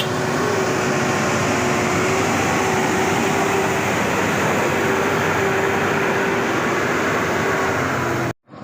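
Hino 500 Euro 4 truck's diesel engine running hard under load, loud and steady with a held whine over the engine noise. It cuts off suddenly near the end.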